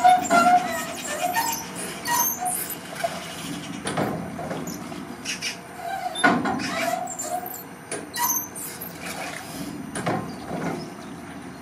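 Rusted steel crank wheel and pivot joints of a kinetic sculpture creaking and squealing as its arm swings a steel flap up and down, with short squeaks and knocks at irregular times.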